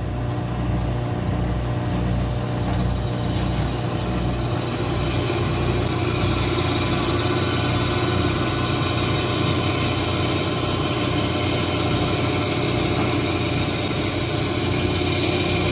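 Rock saw cutting a geode held in its clamp: a steady motor hum, with a grinding hiss that builds over the first few seconds as the blade bites into the stone and then holds steady.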